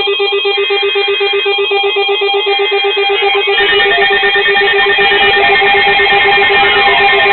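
Several weather alert radio receivers sounding their alarms at once for an incoming warning: a fast-pulsing low beep under a cluster of steady high electronic tones. The sound grows denser about three and a half seconds in, and sweeping tones rise and fall near the end.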